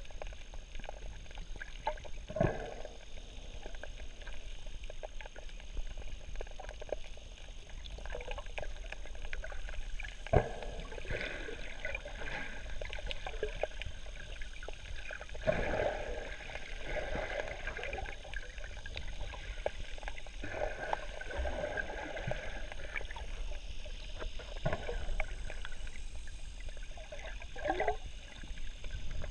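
Muffled underwater sound heard through a GoPro housing: a scuba diver's exhaled bubbles gurgling out of the regulator every few seconds, over a low steady rumble of water and a faint crackle of small clicks.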